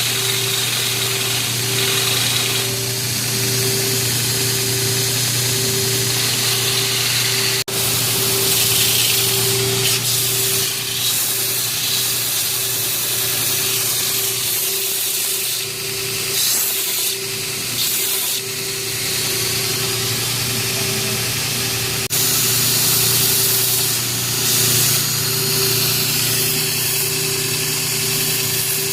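A power tool running steadily: a motor hum with a pulsing tone under a rubbing, grinding hiss. The sound changes abruptly twice.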